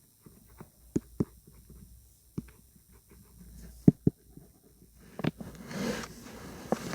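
A handful of sharp, irregular taps and clicks over a quiet background, with a brief soft hiss near the end.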